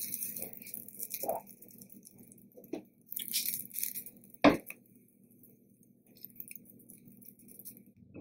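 Faint handling sounds of a tortilla being pressed into an oiled nonstick frying pan, with light crackling and a few small ticks, and one sharp knock about four and a half seconds in, over a faint steady hum.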